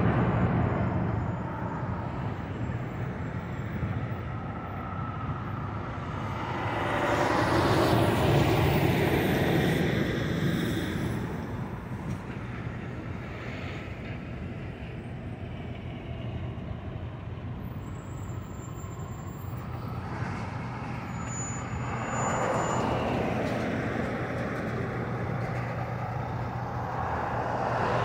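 Semi-trucks' diesel engines and tyres passing on the road, swelling and fading as each rig goes by: once at the start, louder about a third of the way in, and again in the last third as a Peterbilt tanker rig comes through. A steady low engine hum runs underneath.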